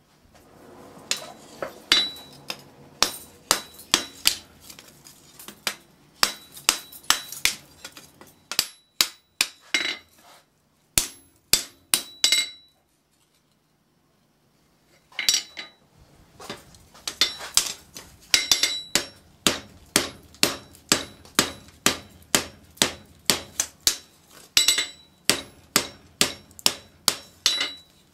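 Hand hammer striking hot steel bar stock on an anvil, a steady run of blows about two a second with a bright ring, stopping for about two seconds around the middle before starting again. The flat bar is being bent edgewise, the hard way, into a curve.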